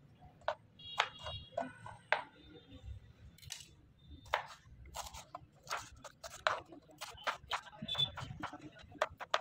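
Kitchen knife chopping broccoli and bell pepper on a plastic cutting board: sharp, irregular chops about two a second.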